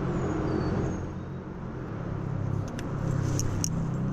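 A steady low rumble, with a few light clicks in the second half and faint high chirps.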